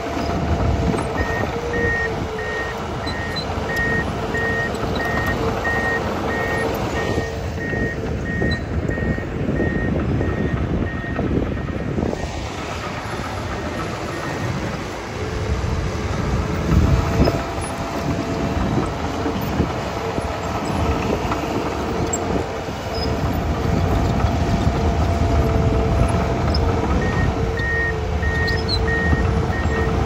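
Komatsu D51PXi crawler dozer's diesel engine running under load with track noise, its backup alarm beeping steadily for the first ten seconds or so and again near the end. A brief louder thump a little past halfway.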